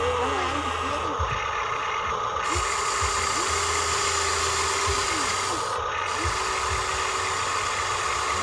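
Small electric motors of remote-control construction models whining steadily. Another motor spins up, holds and winds down about three times.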